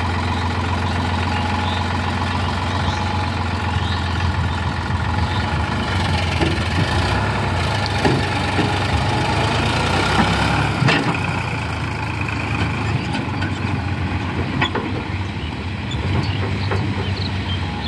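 Farm tractor's diesel engine running steadily while the tipping trailer, emptied of sand, is lowered. The engine note changes about halfway through as the tractor pulls away, with a few sharp knocks along the way.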